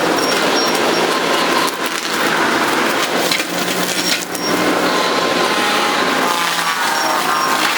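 Skid-steer forestry disc mulcher shredding trees: continuous loud crunching and splintering of wood with frequent sharp cracks, over the machine's steady drone.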